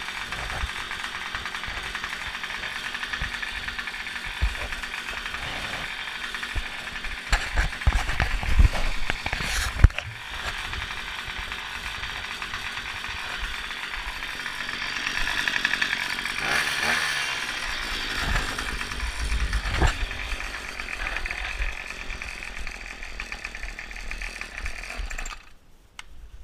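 Small petrol engine running steadily, with a few sharp knocks about eight to ten seconds in, then cutting out near the end.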